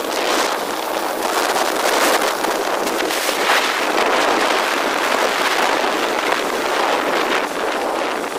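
Wind rushing over the microphone of a camera on a moving motorcycle: a loud, steady hiss of air.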